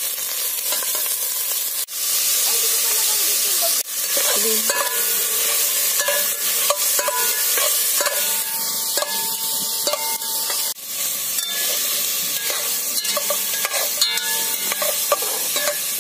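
Pork pieces sizzling as they brown in a large metal pot, with a metal spatula scraping and clinking against the pot as they are stirred. The sound drops out briefly three times.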